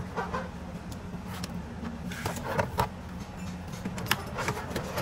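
A steady low engine-like hum with scattered clicks and knocks over it.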